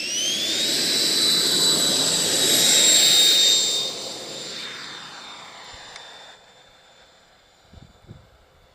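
A 145 mm electric ducted fan in a large RC jet: a high whine rising in pitch as it spools up to full power, over a loud rush of air. It holds steady, then fades from about four seconds in and drops away near six seconds.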